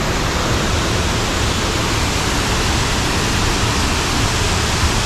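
Sgwd yr Eira waterfall heard up close: a heavy curtain of water falling into its plunge pool, a loud, steady rushing roar.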